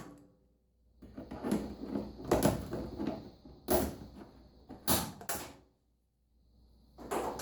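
Pliers working a metal hose clamp on a washing machine's rubber dispenser hose: a handful of sharp clicks and clanks about a second apart as the clamp is released and the hose is worked loose.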